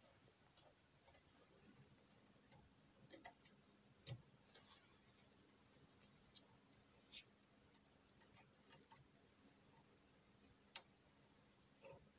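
Near silence broken by scattered faint clicks and light handling noises from gloved fingers on a laser mirror mount, with one sharper click near the end.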